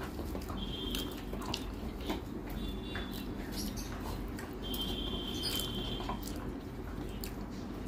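Fingers mixing and squeezing rice with fried potato on a metal plate: soft wet squishes and small clicks of fingers against the plate. Thin high squeaks come about one second in, about three seconds in, and a longer one around five to six seconds.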